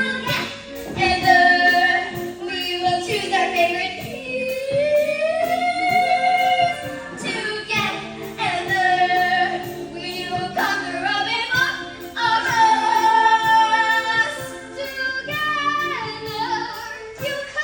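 Singing of a stage-musical song over instrumental backing, with long held notes that glide in pitch.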